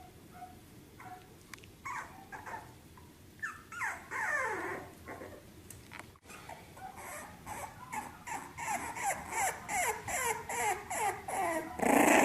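A small puppy whimpering: short cries that fall in pitch, a longer one about four seconds in, then a quick run of two or three a second that grows louder, ending in a loud yelp.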